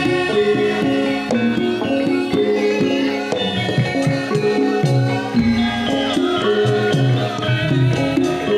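Javanese gamelan music accompanying a lengger dance: many struck pitched notes in a running pattern over drum strokes, playing continuously and loudly.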